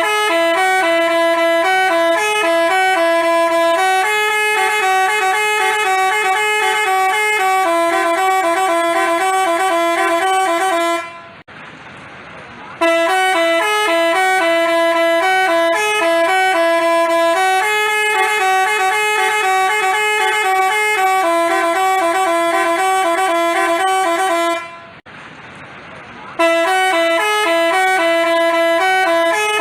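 Basuri telolet bus horn playing a tune in stepping horn notes. The same phrase of about eleven seconds plays three times, with a short break between each.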